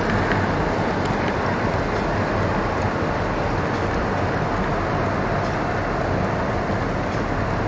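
O scale model freight train rolling past on its track: a steady running rumble of metal wheels on rail.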